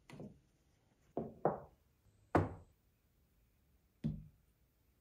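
Five short knocks and thuds as objects are set down on a wooden desktop, two of them in quick succession about a second in. The last, about four seconds in, is a drinking glass set down on a coaster.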